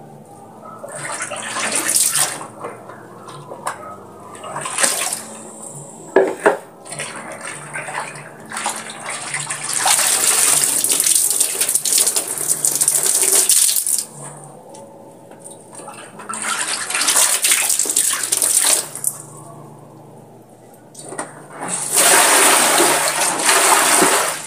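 Laundry being rinsed by hand in plastic tubs of soapy water: clothes sloshed, lifted and wrung, with water splashing and pouring in several bursts a few seconds long. A couple of sharp knocks of plastic about six seconds in.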